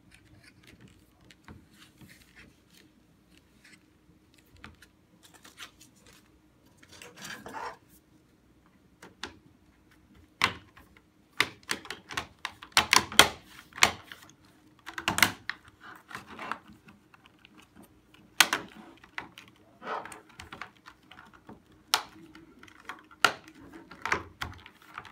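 Irregular plastic clicks and knocks from a Brother GT printer ink cartridge being handled: the ink bag is pressed into the plastic tray and the black cover pressed down over it. Sparse at first, with the clicks coming thick and loud from about ten seconds in.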